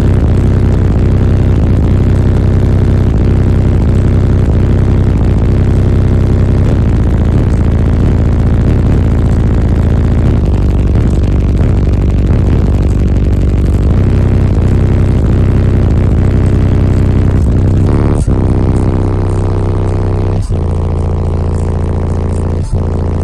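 Very loud bass played through a car audio system's 15-inch Avatar STU subwoofers on a 20,000-watt amplifier, heard inside the car's cabin. About two thirds of the way through, it changes to long held low bass notes that step to a new pitch twice.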